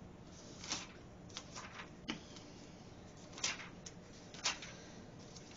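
Thin Bible pages being turned by hand: a handful of short, soft paper rustles and flicks, scattered irregularly.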